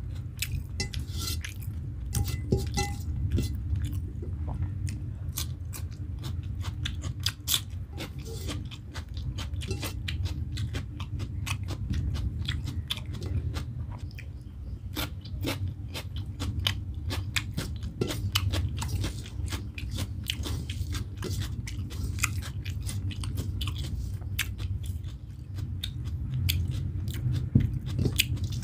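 A person chewing and biting into rice, egg curry and boiled eggs eaten by hand, with many quick wet smacks and small crunches, and fingers working the rice on a steel plate. A steady low hum runs underneath.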